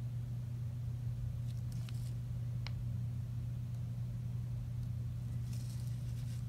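A steady low hum, with a few faint ticks and light scratching of a Sharpie felt-tip pen drawing on paper.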